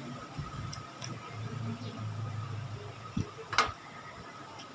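Quiet eating sounds of balot being chewed and picked apart by hand. There is a low hum for about a second near the middle, a soft thump a little after three seconds, and a single sharp click just after it.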